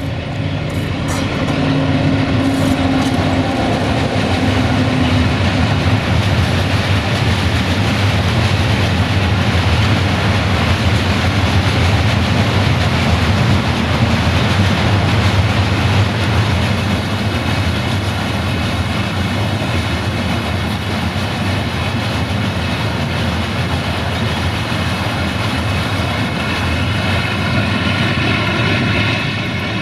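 Sulzer-engined 060-DA (LDE2100) diesel-electric freight locomotive passing, its engine note heard as a steady hum for the first few seconds. Then a long train of loaded open freight wagons rolls past close by with a loud, steady rumble of wheels on the rails.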